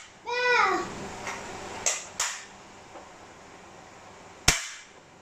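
Child's plastic toy gun going off: a short falling tone just after the start, two sharp clicks around two seconds in, and one loud snap about four and a half seconds in.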